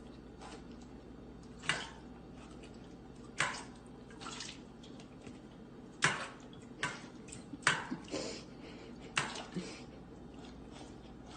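A dozen or so sharp, irregular clicks with short wet-sounding tails, roughly one every second, over a low steady hum.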